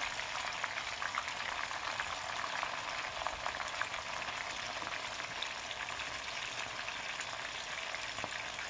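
Broad beans deep-frying in a saucepan of hot oil: a steady sizzle with many small crackles as the oil bubbles hard around the second batch.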